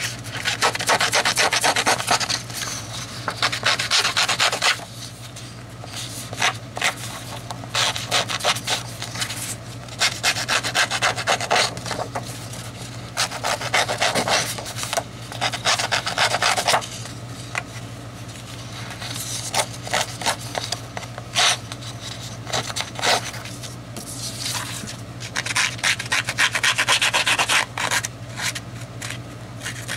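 Edge of a sheet of brown cardstock scraped with a small handheld distressing tool: rapid rasping strokes in bursts of a few seconds, with short pauses between. A steady low hum runs underneath.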